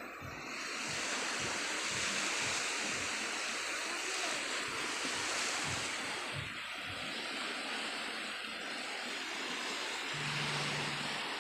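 Sea surf washing steadily on the shore, with wind buffeting the microphone in low thumps. A low steady hum comes in near the end.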